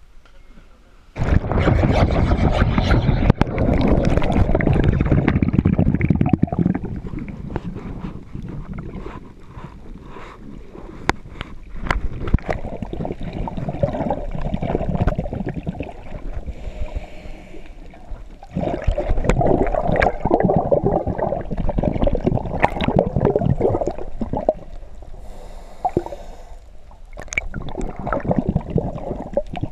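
Water rushes and bubbles loudly for about five seconds, starting about a second in, as the diver plunges into the sea. After that the sound is muffled underwater: a scuba diver's exhaled bubbles gurgling in bursts every few seconds, with scattered sharp clicks.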